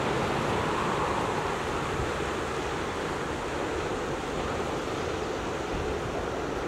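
Ocean surf washing steadily over a rocky shore, an even rushing noise that eases slightly after the first couple of seconds.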